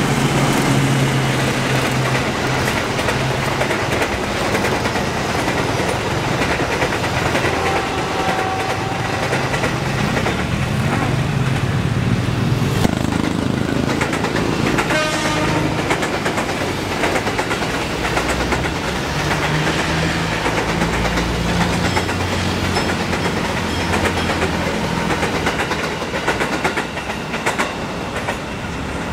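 Passenger trains passing close by with a loud, steady rumble of wheels on the rails. First a GE CC206 diesel-electric locomotive hauling an express, then KRL electric commuter trains.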